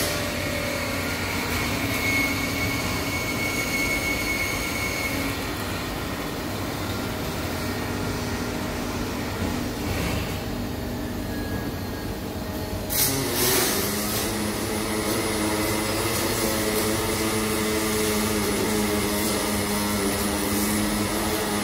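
A steady machine drone with a low hum, broken once by a short, loud burst of hiss about thirteen seconds in.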